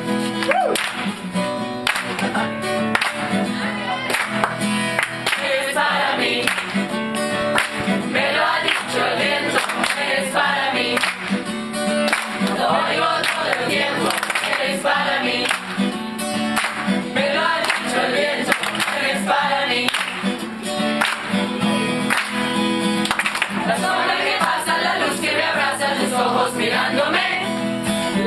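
Music: several voices singing together over instrumental accompaniment.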